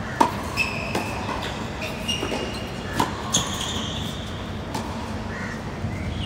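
Tennis rally: a few sharp pops of the ball off racket strings and the hard court, the loudest about a quarter second in, with short high squeaks between.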